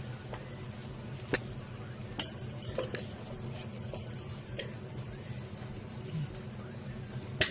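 A spoon mixing dum-cooked biryani rice in a pot, lifting the layers from the bottom, with a few sharp clinks of the spoon against the pot, the loudest near the end, over a steady low hum.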